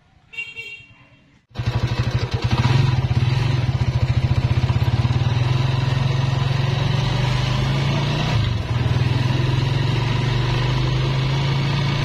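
Honda TMX motorcycle's single-cylinder four-stroke engine running under way, heard from the rider's seat. It starts abruptly about a second and a half in, and dips briefly in pitch and level about eight seconds in.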